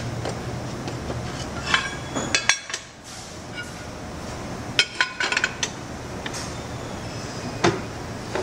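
Clanks and clinks of steel parts being handled on an arbor press: an electric motor's rotor and shaft and pieces of steel angle set in place under the ram. The knocks come in a few scattered groups, about two seconds in, around five seconds and once near the end, over a low steady hum.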